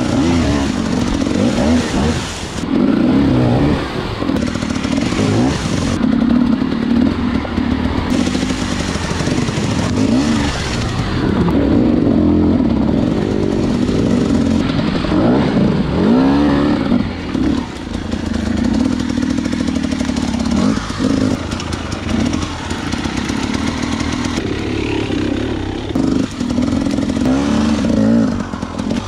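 Husqvarna hard-enduro dirt bike engine, its revs rising and falling over and over as the throttle is worked.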